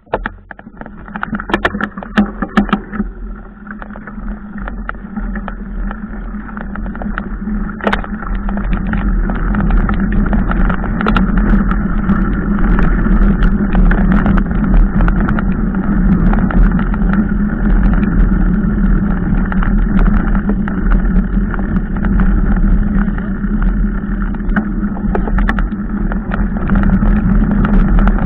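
Wind rushing over a handlebar-mounted action camera on a bicycle ridden along a rough dirt track, with a steady low rumble and scattered rattles and clicks from the bike and tyres. It starts abruptly and grows louder over the first ten seconds as the bike picks up speed, then holds steady.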